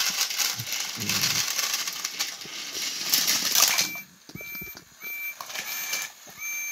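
Battery-powered Thomas & Friends toy engines running on plastic track, motors whirring and plastic clattering for about four seconds until they tumble off. Then a string of short, high electronic beeps about twice a second.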